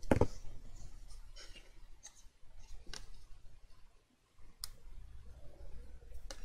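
Handling of stiff cardstock as a box lid's glued tabs are folded and pressed together by hand, with scattered light clicks and rustles. A plastic glue bottle is set down on the cutting mat at the very start, making a single knock.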